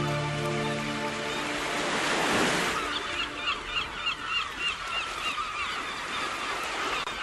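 Sea sound effect in a song's instrumental break: the music falls away into a rushing wave swell about two seconds in. Then comes a rapid run of short, high squawking bird calls over faint sea noise.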